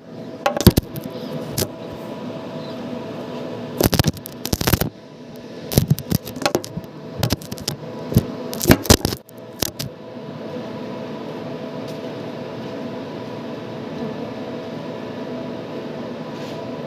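Sharp metallic knocks and scrapes in irregular clusters for about the first ten seconds, over a steady machine hum with a few held tones that runs on alone after that.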